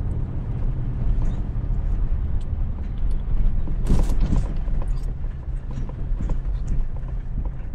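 Car driving on a wet, puddled dirt road, heard inside the cabin: a steady low rumble of tyres and engine with scattered small ticks and knocks from the rough surface, and one louder burst of noise about four seconds in.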